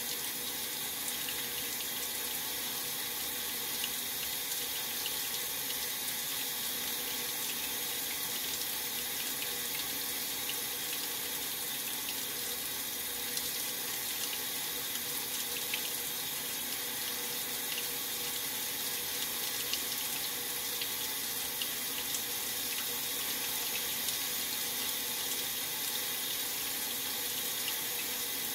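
Maytag Centennial top-load washer filling its tub with water: a steady, unbroken rush of water spraying in. The fill is for the rinse stage of its delicate cycle.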